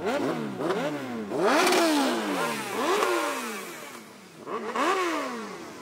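Motorcycle engines revving in a series of quick throttle blips, about six, each pitch shooting up and sliding back down, several overlapping as from more than one bike.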